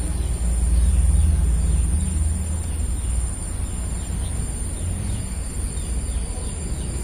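Outdoor ambience: a steady high-pitched trill of insects such as crickets, with a few faint short chirps over it, and a low rumble on the microphone that is strongest in the first couple of seconds.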